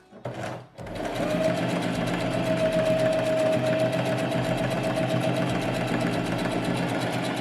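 Singer Heavy Duty 4432 electric sewing machine starting up about a second in and running steadily at speed, sewing a decorative stitch: a steady motor whine with rapid needle ticking.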